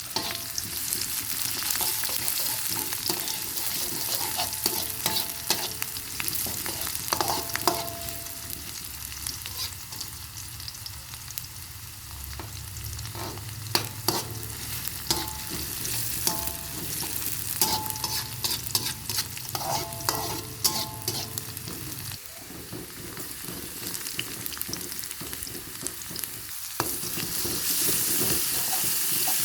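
Food stir-frying in hot oil in a pan: a steady sizzle with a spatula repeatedly scraping and knocking against the pan. A low hum under it stops suddenly about three-quarters of the way through.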